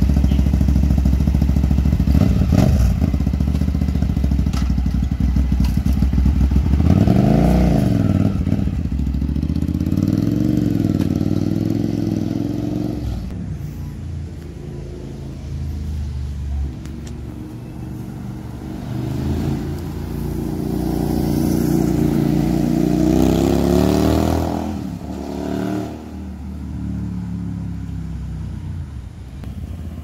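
Hyosung GT650R (Naza Blade) 647 cc V-twin running with throttle blips, then pulling away with rising revs through the gears and fading. It revs up again in the distance and is heading back near the end.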